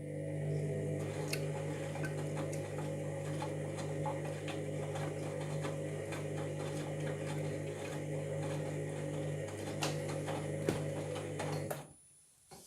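Washing machine motor turning the drum in a wash tumble: a steady hum with rattling and clicking from the drum, which stops abruptly about twelve seconds in as the drum pauses. The machine is suspected of a drum or motor fault.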